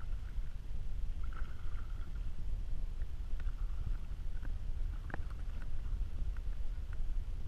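Steady low rumble of wind buffeting the microphone, with a few faint light ticks, the clearest about five seconds in.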